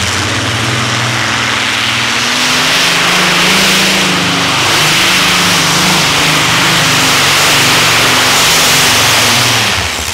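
Unlimited-class pulling tractor with three or more supercharged engines running under full load as it drags the weight sled, a loud, dense engine sound with a wavering pitch over heavy hiss. It grows louder about two seconds in, holds, and drops off just at the end.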